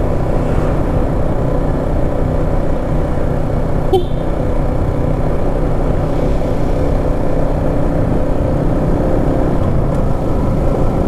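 Yamaha Exciter 155 VVA's single-cylinder four-stroke engine running steadily while the motorcycle cruises at about 40 km/h, with one short click about four seconds in.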